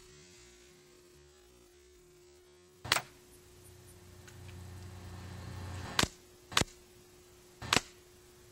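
Four sharp shots from a Marksman 2004 air pistol, irregularly spaced: one about three seconds in, then three more close together a few seconds later. A faint steady hum lies under them.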